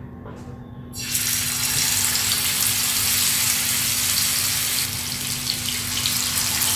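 Marinated surmai (king mackerel) steaks sizzling as they go into hot oil in a frying pan; the sizzle starts suddenly about a second in and then runs steadily.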